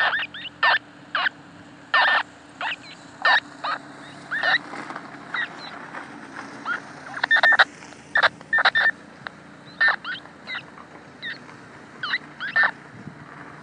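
Icom IC-R3 handheld scanner receiving an unidentified radio signal: short, irregular chirps and warbling bursts, a few each second, over a faint steady hum.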